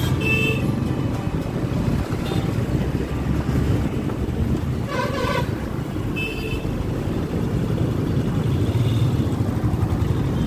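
Busy city road traffic heard from a moving vehicle: a steady engine and road rumble, with short horn toots near the start and about six seconds in, and a longer, louder horn about five seconds in.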